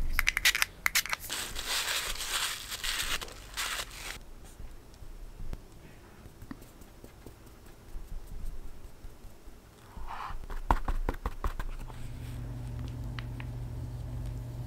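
Flouring a silicone madeleine mould: a few seconds of dense rustling and scraping, then light taps from a small metal mesh sieve as flour is sifted over it, and a quick run of knocks as the mould is knocked to shake off the excess flour. A steady low hum comes in near the end.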